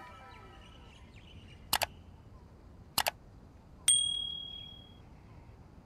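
Subscribe-reminder sound effects: two quick double mouse-clicks about a second apart, then a click followed by a bright bell-like notification ding that rings out for about a second.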